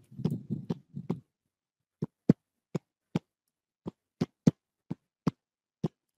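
About a dozen sharp computer mouse clicks at irregular intervals, with dead silence between them, heard over an online meeting's audio. A low muffled rustle comes with the first few clicks.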